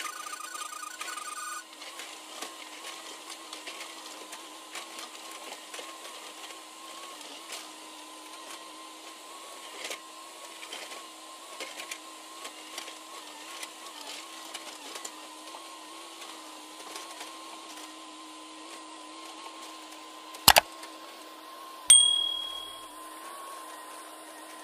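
JCB tracked excavator running, with a steady engine and hydraulic hum and small scraping clicks as its bucket cuts into the earth slope. Near the end come two sharp, loud knocks about a second and a half apart; the second rings briefly.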